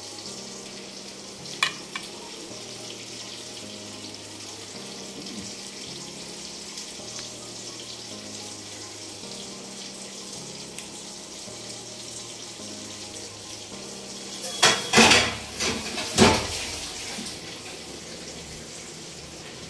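Wet squelching of a hand mixing oily marinated liver in a stainless-steel bowl, with a short click about a second and a half in and a cluster of louder squishes and clinks against the bowl near the end.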